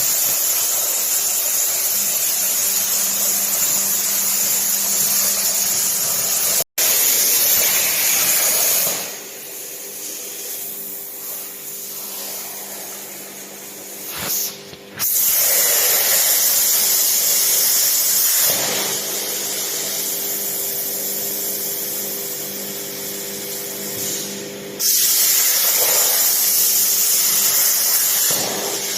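CNC plasma cutter cutting steel flat bar: a loud, steady hiss of the arc and air jet over a steady hum. The loud hiss twice gives way to a quieter hiss and hum for several seconds, then starts again.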